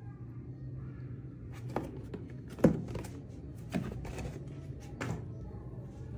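A cardboard product box being handled and moved over a table: four short knocks and thumps, the loudest about two and a half seconds in.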